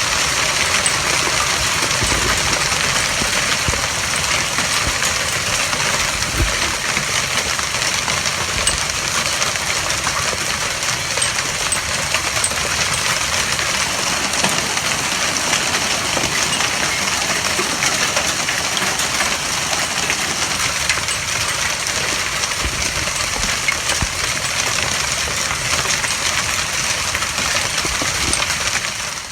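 Heavy rain and ping-pong-ball-sized hail pounding down: a loud, dense, steady hiss full of sharp ticks of hailstones striking hard surfaces.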